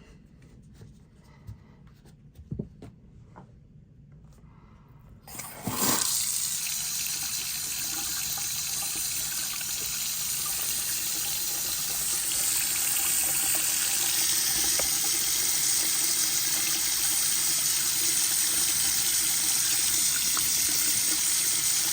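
A few faint handling clicks, then about five seconds in a faucet is turned on and water runs steadily into the sink. The faucet is being tested after its O-rings were replaced, and it now holds without leaking.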